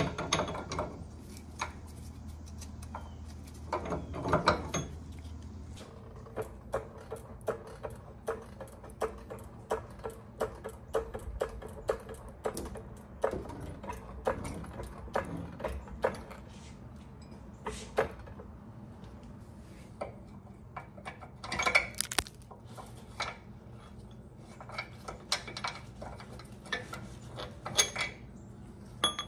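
Ratchet wrench clicking in repeated strokes as it backs the nut off a Corvette's rear leaf spring end-link bolt, with metal taps and clinks from the bolt and its hardware.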